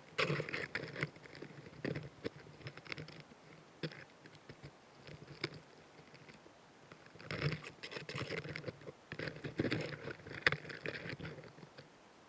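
Narrow-winged mantis picked up at very close range: irregular dry crackling, scratching and clicking in two longer spells a few seconds apart, with single clicks between them.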